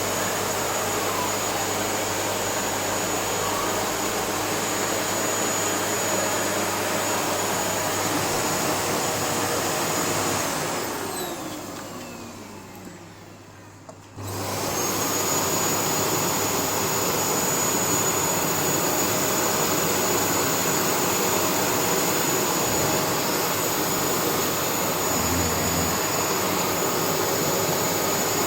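Vacuum cleaner running with a steady high whine. About ten seconds in it is switched off and winds down. A few seconds later it is switched back on, starting abruptly and whining back up to full speed.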